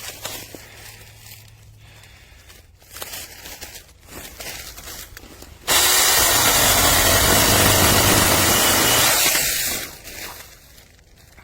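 Small cordless electric mini chainsaw running in one loud burst of about four seconds, starting abruptly about halfway through, after a stretch of quiet knocks and handling sounds.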